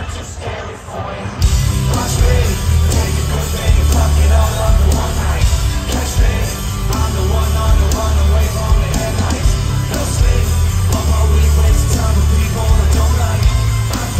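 Live rock band with a lead singer, loud and heavy in the bass and drums. The low end drops back briefly at the start and the full band comes back in about a second and a half in.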